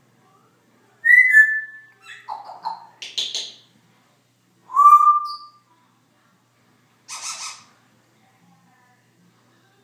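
Congo African grey parrot whistling and squawking: a clear whistle that dips slightly in pitch about a second in, a burst of rough, raspy calls, a second whistle rising and then held about halfway through, and a short harsh call near the end.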